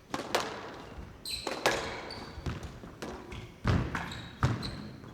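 A squash rally: the ball cracking off rackets and the walls in a string of sharp, irregularly spaced hits that ring in the hall, with short high squeaks of court shoes between them. The loudest hits come in the second half.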